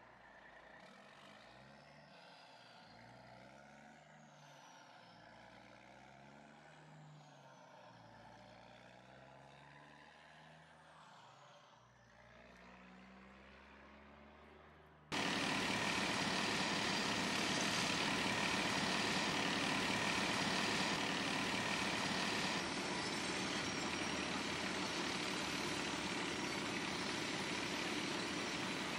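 Faint, distant quarry machinery, its engine pitch rising and falling. About halfway through, the sound jumps abruptly to loud, steady engine noise from the dump trucks on the quarry haul road.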